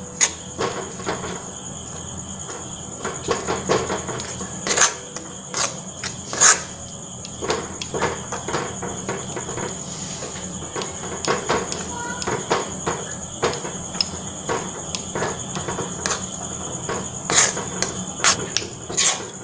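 A steel spoon stirring and scraping in a kadhai, mixing biscuit crumbs into warm milk and ghee. Irregular scrapes and knocks run throughout, over a steady high-pitched tone.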